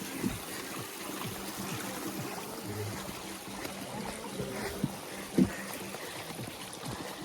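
Gorge stream running over rocks, a steady rushing trickle, with a few short knocks, the loudest about five seconds in.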